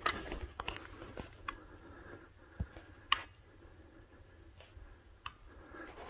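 Faint handling noise on a hand-held camera: scattered small clicks and ticks over a low rumble, with a dull thump about two and a half seconds in and the sharpest click just after it.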